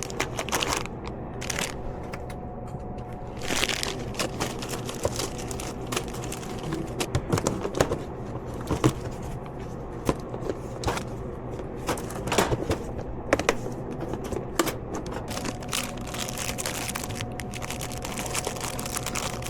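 Plastic snack wrappers crinkling, with scattered clicks and knocks from handling packets and a vending machine tray, over a steady low hum.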